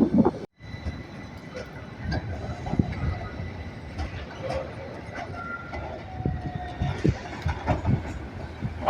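Milan street tram running on its rails, with scattered clicks and a few short, high wheel squeals. The sound drops out abruptly about half a second in, then resumes at a lower level.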